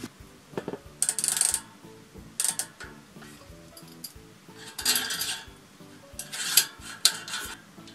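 Quick-release skewer being slid through the hollow axle of a rear wheel hub: metal scraping and clicking in several short bursts, about a second in, near the middle and toward the end, over quiet background music.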